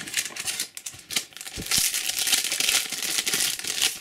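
A Topps Match Attax foil booster pack being torn open and crinkled in the hands: a dense crackling rustle that swells and is loudest through the second half.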